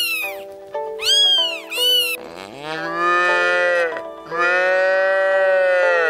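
A domestic cat meowing a few short times over light background music, then two long cow moos.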